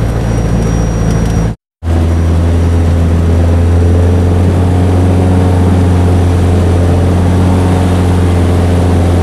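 Light aircraft's piston engine and propeller running steadily, loud from inside the cabin as the plane moves along a dirt airstrip. The sound cuts out for a moment about one and a half seconds in.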